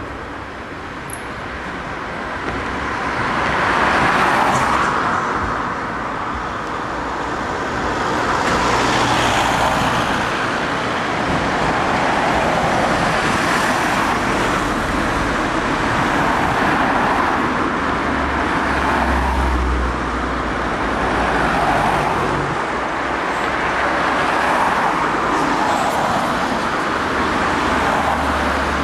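Road traffic with cars passing close by one after another, each rising and fading over a few seconds, about six or seven passes.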